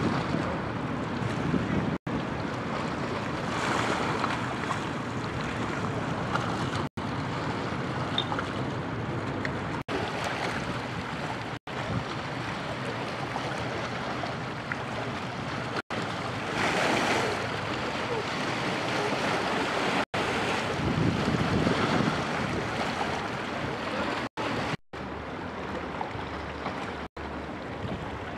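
River water sloshing and lapping, with wind buffeting the microphone: a steady rushing noise without any clear engine tone. It breaks off for an instant several times.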